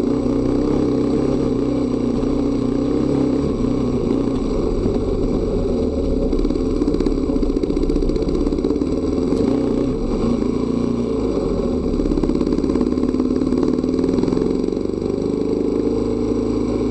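Dual-sport motorcycle engine running under way, its pitch rising and falling several times with the throttle, with a dip in level near the end.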